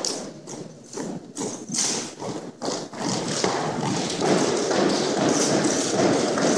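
A drill team's footfalls striking a hardwood gym floor in step, sharp knocks about two a second, mixed with the knocks of drill rifles being handled. From about halfway in, a denser and steadier noise takes over.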